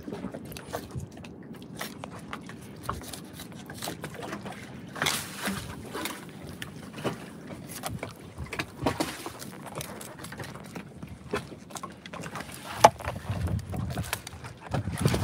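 Fillet knife cutting and scraping along a snapper's rib bones as the fillet is worked off on a wooden cutting board: irregular small scrapes and clicks, with one sharper click near the end.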